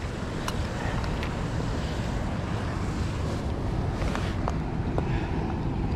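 Steady wind buffeting the microphone, with a few faint small clicks.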